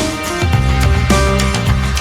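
Background music: an upbeat instrumental track with guitar, bass and a steady beat.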